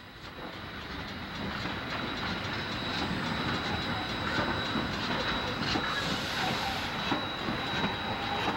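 Chesapeake and Ohio 2765, a 2-8-4 Berkshire steam locomotive, rolling past close by, growing louder over the first two seconds as it draws near and then running on steadily, with irregular clicking of its wheels over the rail joints.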